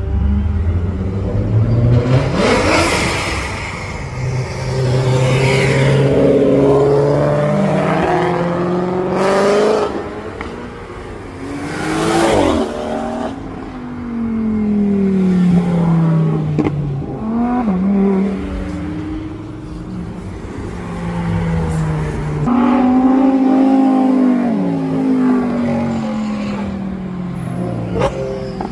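Several cars accelerating hard away one after another, each engine revving up and easing off, with a few sharp cracks among them.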